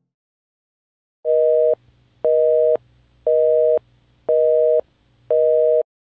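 Telephone busy signal: five evenly spaced beeps, each a steady two-tone chord lasting about half a second with equal gaps, beginning about a second in.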